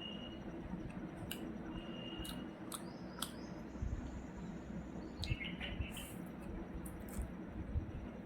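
Quiet eating sounds: scattered small clicks and soft crunches over a low room hum, with a few short, high chirps in the background.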